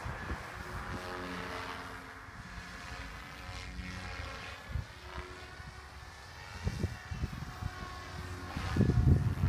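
SAB Goblin 420 Sport electric RC helicopter flying overhead: the steady hum and whine of its rotor and motor, shifting slightly in pitch as it moves. Wind buffets the microphone about seven seconds in and again near the end.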